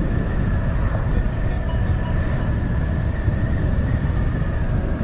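Motorcycle riding at steady road speed: heavy wind noise on the microphone over engine and tyre noise, with the tyres humming over a grooved, ridged road surface and a steady whine above it.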